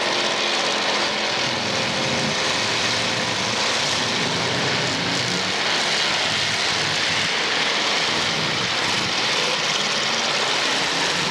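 Engines of several demolition derby cars running and revving together, a dense, steady engine racket with many pitches shifting up and down.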